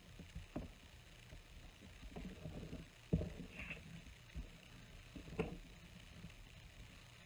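Steel ruler being moved and set down on a craft cutting mat while card stock is marked with a pencil: a few light knocks, the loudest about three seconds in, with some soft scraping.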